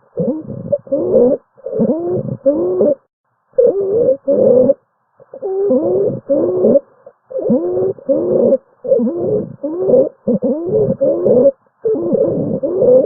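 Breath sounds heard through a stethoscope, each breath carrying low, musical, gliding tones: low-pitched wheezes (rhonchi). They come in repeated breaths about a second long, with short pauses between them.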